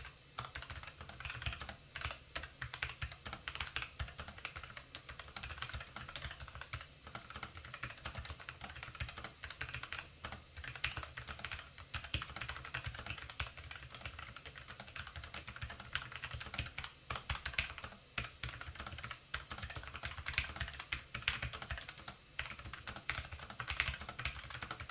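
Fast, continuous typing on a Logitech MX Mechanical Mini keyboard with Tactile Quiet switches: a dense stream of key clicks with only brief pauses, at a typing speed of about 80 words per minute.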